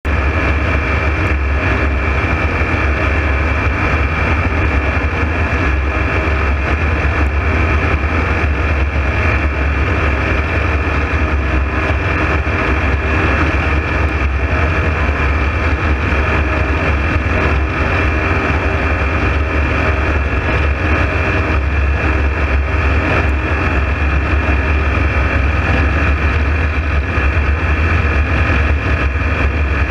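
Ultralight aircraft's engine and propeller running steadily in level flight: a constant drone with a strong low hum and a steady higher whine.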